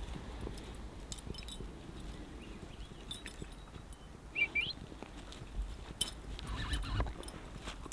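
A Blue Heeler's metal collar tags jingling in scattered light clinks as the dog walks and sniffs through grass.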